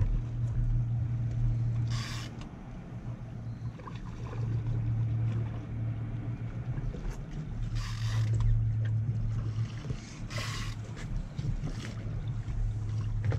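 Boat motor running at idle, a low steady hum that fades and comes back, with three short hissing bursts: about two seconds in, about eight seconds in, and a couple of seconds after that.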